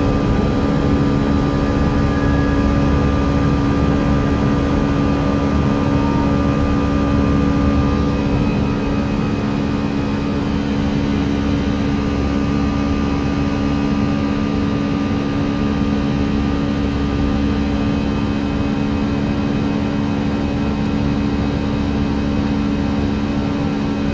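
Airbus A319 flight deck in the climb after a full-power (TOGA) take-off: a steady rush of engine and airflow noise with a constant low hum, easing slightly about eight seconds in.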